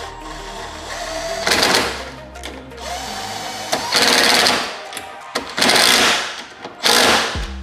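Cordless power tool running bolts down in four short bursts of rapid mechanical rattling, the last one briefly, over background music.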